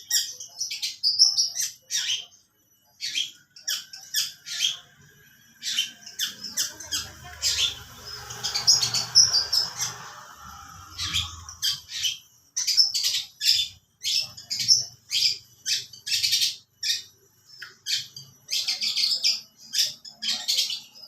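Long-tailed shrike (pentet) singing a mimicked lovebird song: runs of short, sharp, shrill chirps and squawks in quick series, with short pauses between runs. A low rumble sits underneath for a few seconds near the middle.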